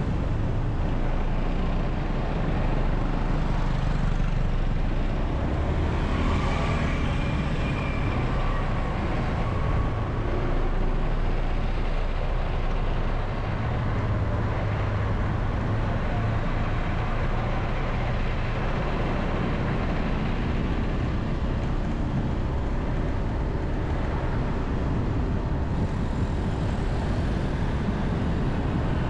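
Road traffic heard from a moving vehicle: a steady low engine and road rumble, with motorbikes and cars close by.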